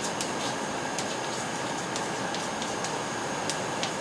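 Chalk tapping and scraping on a blackboard as letters are written: a run of short, sharp strokes at an uneven pace, over a steady background hiss.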